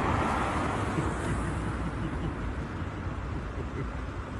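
City street traffic noise: a broad rush, loudest in about the first second and a half and then easing off, over a steady low rumble.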